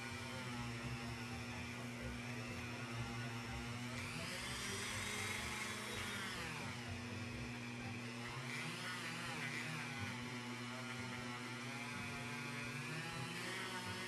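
Dremel rotary tool spinning a polishing wheel against a Zippo lighter's metal case with polishing compound: a steady motor whine whose pitch rises and falls a few times as the tool works.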